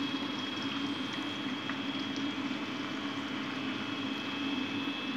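Sweet and sour sauce, thickened with cornstarch, simmering in a pot as it is stirred with a wooden spatula, over a steady hum and hiss.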